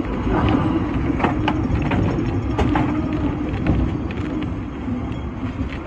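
Hong Kong sixth-generation teak-bodied double-deck tram heard from on board as it runs along the street track: a steady low rumble with a constant low hum, and several sharp clicks from the wheels and running gear.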